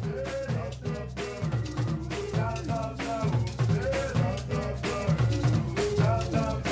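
Background music with a steady drum-kit beat, a bass line and a melody.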